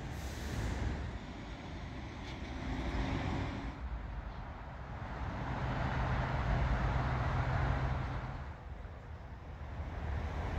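Road traffic noise, with a motor vehicle passing that is loudest about six to eight seconds in, carrying a low engine hum.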